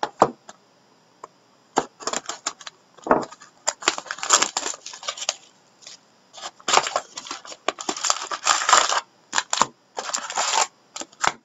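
Cardboard trading-card hobby box and its packaging being torn open and the card packs pulled out: a string of short scratchy, crinkling bursts.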